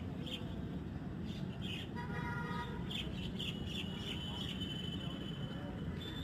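Small birds chirping in short, high calls, over a steady low rumble, with a brief pitched toot about two seconds in.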